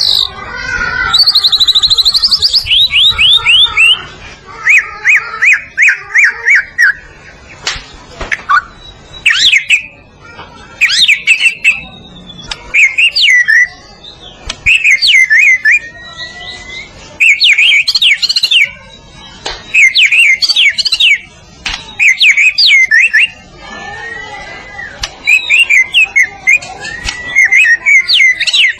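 White-rumped shama (murai batu) singing a loud, varied song of rapid trills and quick whistled phrases, in bursts of a second or two with short pauses between them.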